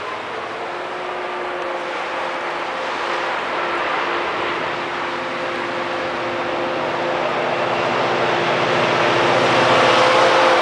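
HŽ series 2062 diesel-electric locomotive approaching with a passenger train. Its engine drone, with a few steady tones, grows steadily louder as it nears.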